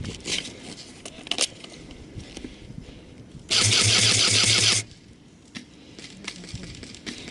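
Airsoft electric rifle firing one full-auto burst of a little over a second, about halfway in: the gearbox motor runs while BBs are fired in a fast, even rattle, and the burst then cuts off sharply. Light clicks and scuffs of gear and movement are heard around it.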